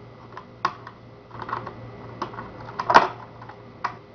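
Scattered metallic clicks and clacks of lock hardware being handled as a key is put into a rim cylinder and worked to unlock it, with one louder clack about three seconds in.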